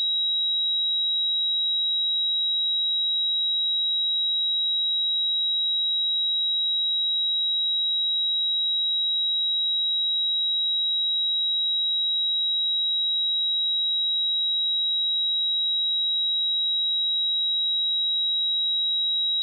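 A pure 3844 Hz sine-wave test tone, a single steady high-pitched note held at constant level without change.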